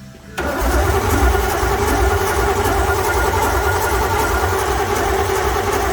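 A 383 stroker V8 being cranked over by its starter, starting about a third of a second in and held steadily without catching. The crew suspect missing fuel or spark.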